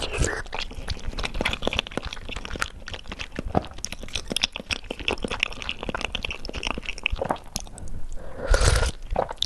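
Close-miked chewing and eating mouth sounds: many quick wet clicks and smacks, with a louder, noisier gulp or slurp near the end.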